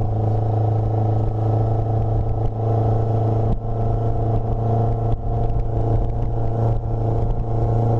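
Motorboat engine running steadily at speed, with a strong low hum.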